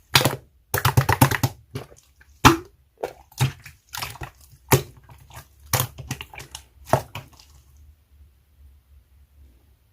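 Hands squishing and pressing slime, making bursts of sharp wet pops and clicks that die away to faint handling sounds after about seven and a half seconds.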